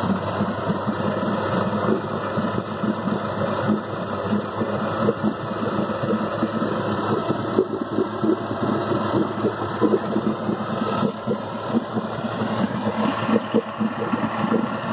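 Vintage Chrysler 70 hp two-stroke outboard motor running steadily with a rapid, even beat.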